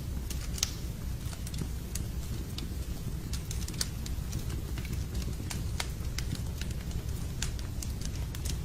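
Logs burning in a fireplace, crackling with irregular sharp pops and snaps over a steady low rumble.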